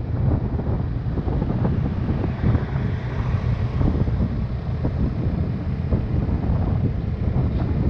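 Wind buffeting the microphone of a KTM 390 Adventure riding at highway speed, with the bike's single-cylinder engine running underneath.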